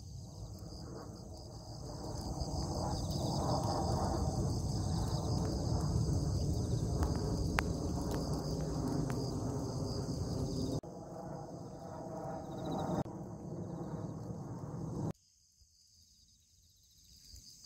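Chorus of insects chirping steadily in a high, finely pulsing drone over a low, rushing outdoor noise. It drops in level about eleven seconds in and cuts off abruptly about fifteen seconds in, leaving near silence.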